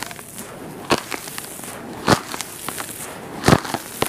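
Handfuls of dry, powdery red dirt crumbling and pouring through fingers into a plastic tub, with three louder gritty crunches spaced over a second apart and small crackles between them.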